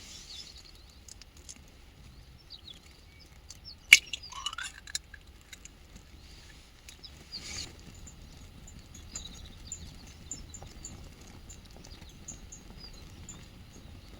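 Small birds chirping with short, high repeated calls, outdoors in the wild. A single sharp click comes about four seconds in, and a brief rustle follows a few seconds later.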